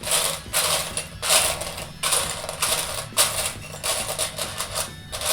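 Loose plastic Lego pieces clattering and rattling as a hand rummages through them, in a run of short bursts.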